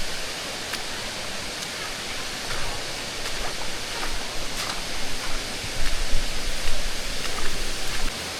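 Steady rush of creek water spilling over rock ledges near Machine Falls. From about six seconds in, louder uneven low rumbling comes over it.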